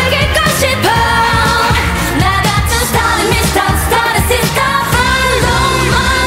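K-pop dance-pop song performed by a female group: women's voices singing over a loud electronic backing track with a steady heavy beat.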